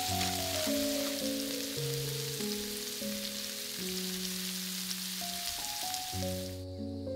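Shrimp sizzling as they fry in a pan, a steady hiss with fine crackles, under background music; the sizzle cuts off abruptly near the end.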